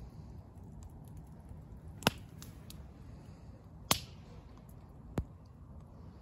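Campfire crackling, with three sharp pops about two, four and five seconds in over a low steady rumble.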